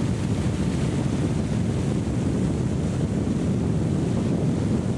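Steady wind buffeting the microphone, with water rushing past a small boat under way.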